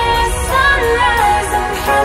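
Electronic music: heavy bass under a gliding lead melody.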